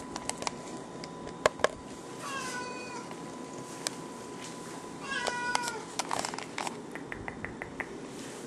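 Domestic cat meowing twice, about two seconds in and again around five seconds, each call falling in pitch at its end. A couple of sharp clicks come just before the first meow, and a run of light ticks follows the second.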